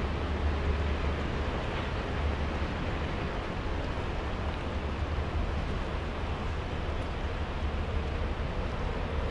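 Shallow river running down a concrete-lined canal: a steady rushing of water over a low, constant rumble.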